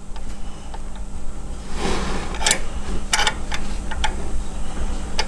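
A few scattered light clicks and knocks of hand tools and parts being handled during timing belt work, over a low steady hum.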